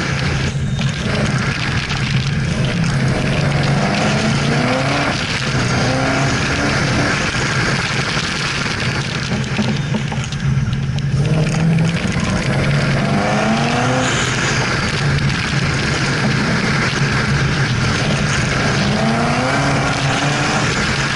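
Camaro ZL1's supercharged V8 under hard acceleration, its pitch rising and dropping back several times as it is driven between corners, under heavy wind noise on the microphone.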